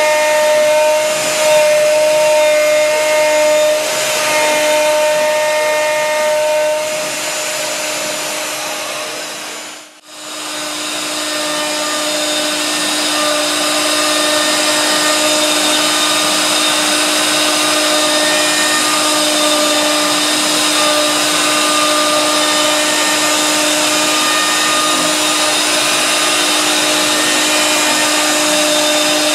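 Router spindle of a CAMaster Stinger CNC machine running steadily with a whine as a half-inch two-flute end mill cuts into wood. The sound dips out briefly about ten seconds in, then resumes.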